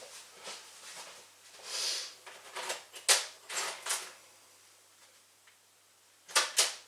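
Small metal hardware and hand tools clicking and clinking as bolts, nuts and screws are fitted: several sharp clicks from about three to four seconds in, and a quick pair near the end.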